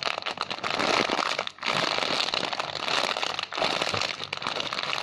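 Crinkling and rustling of a squishy toy being handled and squeezed, broken by two brief pauses.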